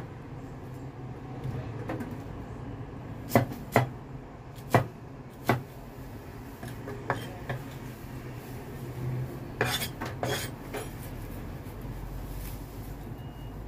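Chinese cleaver chopping an onion on a wooden cutting board: sharp, scattered knocks of the blade on the board, with a quick cluster of chops about ten seconds in. A low rumble comes in near the end.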